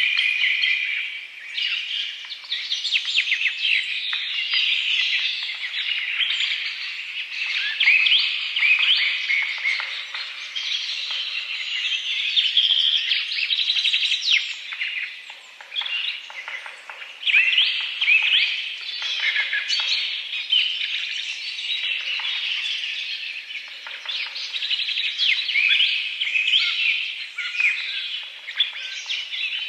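Many small birds chirping and twittering at once in a dense, unbroken chorus of quick, high chirps.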